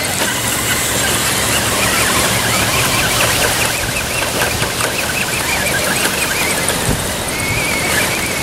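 Radio-controlled Axial Wraith rock crawler's electric motor and gears whining in short, wavering spurts as it crawls up loose rocks, with wind noise on the microphone.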